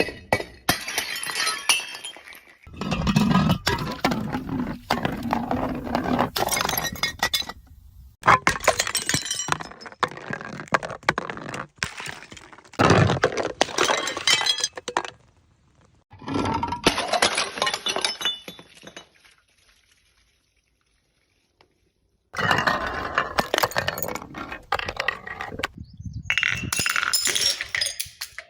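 Glass bottles breaking and being crushed, glass crunching and shards clinking, in about six separate bouts of a few seconds each with short pauses between them and a silent gap of about three seconds past the middle.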